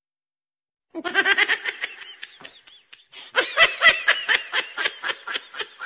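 Laughter starting about a second in, after a moment of silence: a fast run of giggling bursts that grows denser about three seconds in.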